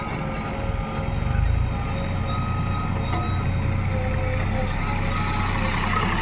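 JCB backhoe loader's diesel engine running under load, revving up briefly about a second in and then settling back to a steady run.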